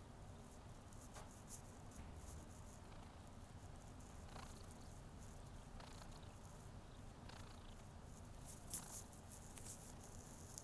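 Tabby kitten purring steadily at close range, with light rustles and clicks of fur being rubbed and stroked; a sharper brief click about nine seconds in.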